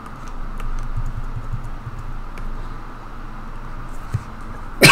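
A person coughs once, sharply, near the end, over a steady low room hum with a few faint clicks.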